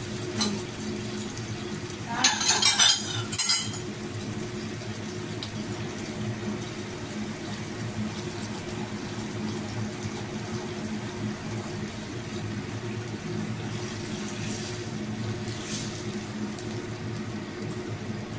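A quick run of kitchenware clinks and knocks about two seconds in, over the steady hiss of a frying pan of sardines in sauce simmering on a gas burner.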